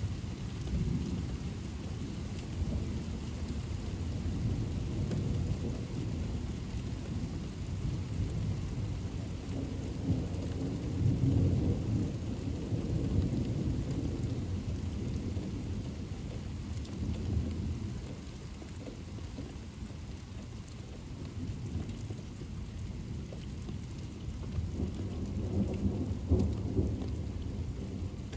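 Steady rainfall with low rolling thunder that swells about a third of the way in and again near the end.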